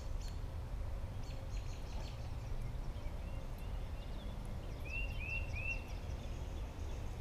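A small bird chirping, a run of short high notes coming two or three a second, loudest about five seconds in, over a steady low outdoor rumble.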